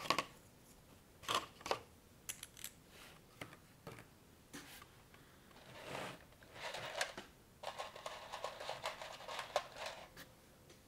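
Plastic building bricks and Technic-style parts being handled and pressed together: a series of sharp clicks and snaps, then about two seconds of rapid small clatter in the second half.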